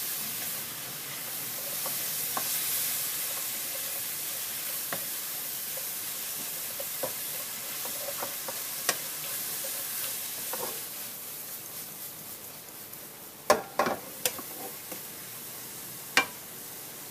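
Leafy greens sizzling as they are stir-fried in a nonstick wok, with a wooden spatula scraping and tossing them. The sizzle dies down over the last few seconds. Near the end come a few sharp knocks of the spatula against the pan, the loudest sounds here.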